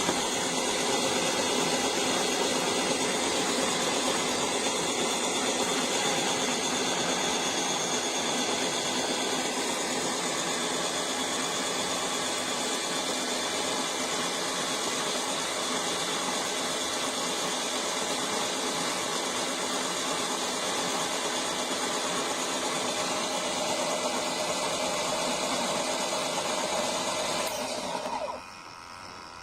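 Electric conical burr coffee grinder's motor running steadily, then switching off about a second before the end.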